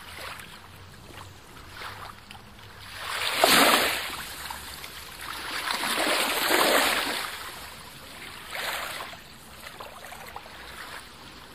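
Rushing water noise like surf, swelling and fading several times; the loudest swells come about three and a half and six and a half seconds in, with a smaller one near the end.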